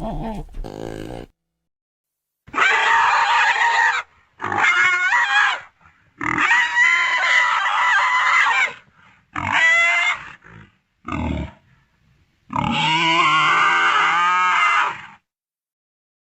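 Velociraptor sound effects: a series of six separate animal-like calls, a few seconds apart with silence between them, some with pitch sliding up and down, the longest lasting about two and a half seconds.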